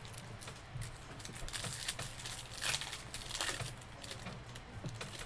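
Crinkling and rustling of trading-card packs and cards being handled, in a string of short irregular rustles.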